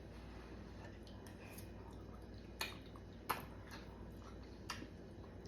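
A person chewing hot food with mouth smacks, and three short sharp clicks, two close together a little past halfway and one near the end.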